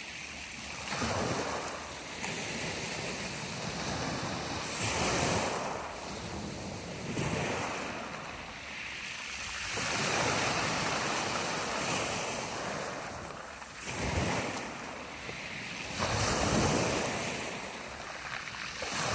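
Black Sea waves breaking on the shore and washing back, a fresh surge every few seconds, with wind on the microphone.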